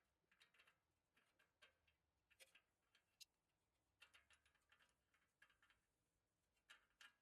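Near silence with faint, irregular clicks and taps, a dozen or so spread unevenly, typical of metal tools and parts being handled.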